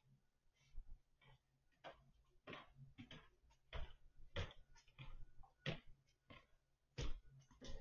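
Faint footsteps in sneakers on a hardwood floor, a person walking at an even pace, about one step every two-thirds of a second, louder near the end as they come closer.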